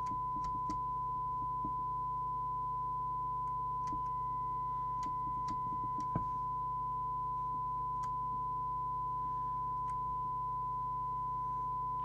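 Steady 1 kHz test tone from a President Walker ASC CB radio receiving a signal generator's test signal during receiver alignment, over a low mains-style hum. A few faint ticks and one sharper click about six seconds in come from the trimming tool and meter knob as the detector coil is adjusted.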